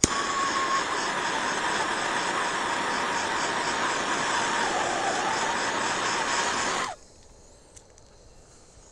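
Handheld gas torch flame hissing steadily with a faint whistle, heating one spot of bamboo cane to straighten it; it cuts off suddenly about seven seconds in.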